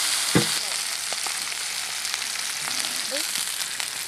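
Hamburger patties frying in a cast-iron skillet: a steady sizzling hiss with scattered small pops and crackles. A single knock sounds about half a second in.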